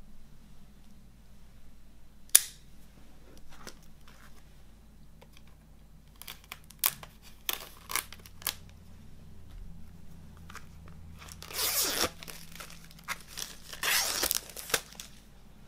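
Cellophane shrink-wrap on a CD case being cut and torn off: a sharp click a couple of seconds in, a string of short clicks and scratches as a folding knife slits the wrap, then two loud stretches of crinkling and tearing as the plastic is ripped and peeled away.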